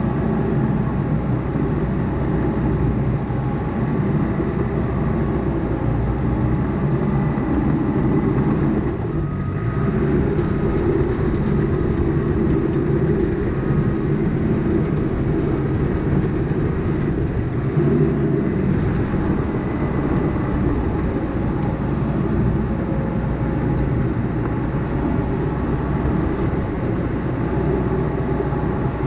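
Caterpillar D5K crawler dozer's diesel engine running steadily under work, with a brief dip about nine seconds in.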